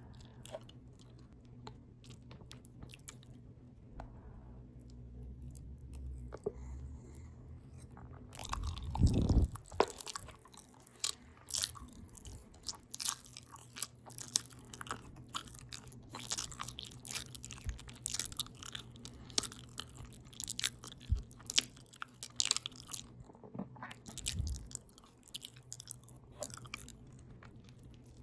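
Open-mouth chewing of a potato taco bowl with ground beef, cheese, lettuce and tomato: sparse mouth clicks at first, then a dense run of clicks and smacks from about ten seconds on. A brief low rumble about nine seconds in is the loudest sound, and a second, fainter one comes about twenty-four seconds in.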